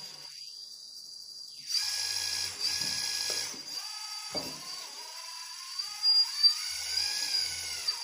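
Hydraulic pump of an RC Liebherr 926 Compact excavator model whining in two bursts, one about two seconds in and one near the end. In the second burst its pitch rises and falls as the controls are worked to lock a bucket on with the hydraulic quick coupler.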